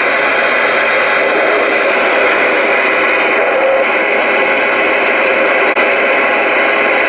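Loud, steady static hiss from the speaker of a Galaxy DX-99V2 ten-meter radio receiving with no signal, with one brief dropout about six seconds in.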